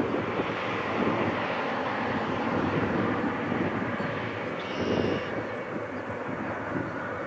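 Twin GE90 turbofans of a Boeing 777 at takeoff thrust as it climbs away after liftoff: a steady, rushing jet engine noise that eases slightly near the end.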